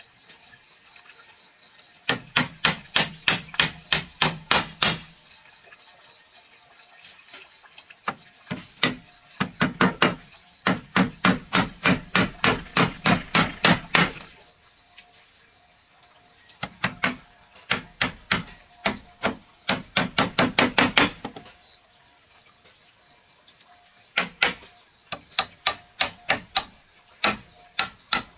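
Hammer striking wood in quick runs of strokes, about four a second, each run lasting a few seconds with short pauses between. A steady high-pitched whine sits underneath.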